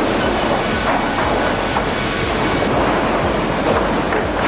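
Sawmill machinery running: a loud, continuous clatter of rattling and knocking metal with some squeals, from logs being moved and processed along a conveyor line.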